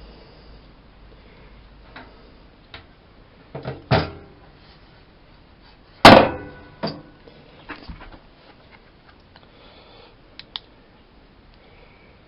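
Miele Softtronic W204 washing machine being readied: a few light knocks, then the door shut with one loud slam about six seconds in, followed by a few small clicks.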